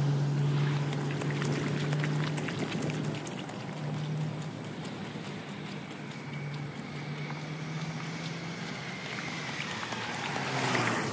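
A vehicle engine humming steadily, with scattered small splashes and clicks; near the end a car passes on the wet road, its tyres hissing through standing water with a falling whine.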